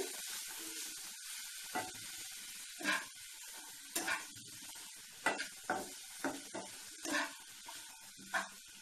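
Chicken and vegetables sizzling in a nonstick frying pan as a metal spatula stirs them, each stroke scraping across the pan about once a second.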